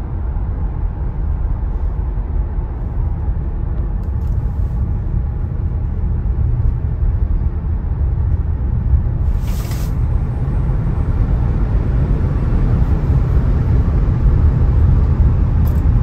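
Road and tyre noise inside the cabin of a Tesla Model Y at speed: a steady low rumble with no engine note, as the car is electric. A brief high hiss comes about nine and a half seconds in.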